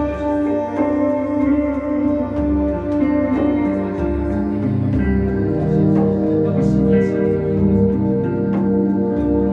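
Ambient band music played live: held chords over slowly changing bass notes, with guitar and faint ticking percussion.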